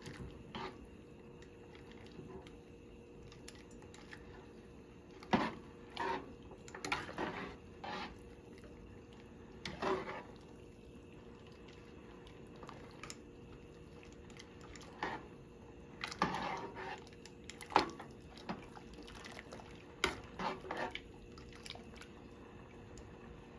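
Kitchen handling sounds: a dozen or so short clinks and knocks of pots, lids and utensils at irregular moments, over a steady faint hum.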